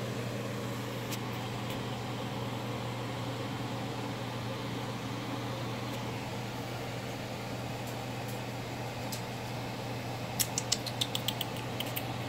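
Steady low hum of room noise, with a few faint ticks and then a quick run of light clicks near the end.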